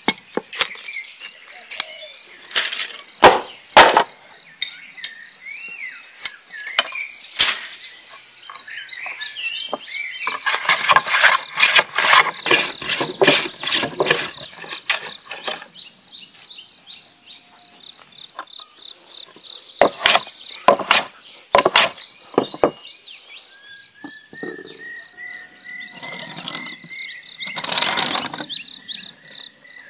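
Bamboo being worked by hand for umbrella ribs: sharp knife knocks and taps on bamboo, a run of quick scraping strokes in the middle, and a knife drawn across a row of bamboo ribs near the end, over a steady high insect chirring.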